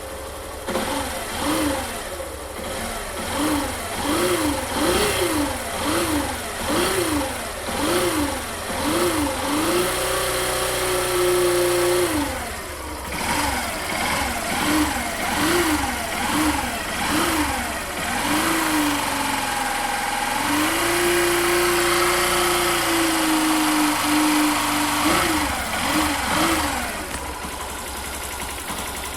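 Yamaha Factor 150's single-cylinder engine being revved in quick repeated throttle blips, twice held at a steady higher speed for a few seconds. A steady whine runs underneath during the first dozen seconds.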